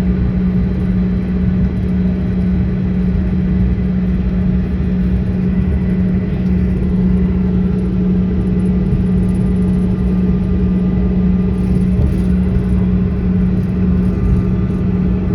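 Jet airliner cabin noise: a steady rumble with a constant low hum.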